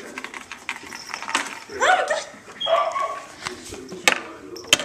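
A cat meowing twice, about two and three seconds in, amid scratching and sharp clicks as it claws at a dangled iPod earphone cord.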